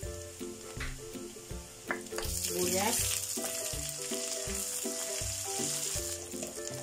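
Garlic frying in hot oil in a wok, stirred with a ladle; about two seconds in the sizzling jumps louder as sliced red onion goes into the oil, and holds. Background music with steady notes plays throughout.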